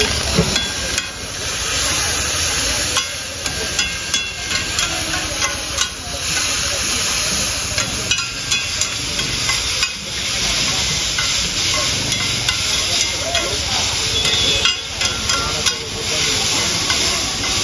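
Noodles sizzling on a hot flat metal griddle while two metal spatulas toss and scrape them, with frequent sharp clinks of the spatulas against the griddle over a steady frying hiss.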